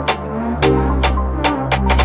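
Background music with a steady electronic beat and deep bass notes.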